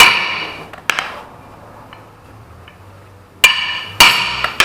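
Hammer blows from a soft-metal hammer on a steel flywheel's starter ring gear, each strike ringing out: two near the start and three more in quick succession near the end. The ring gear, its teeth worn by the starter, is being driven off the flywheel so that it can be turned over.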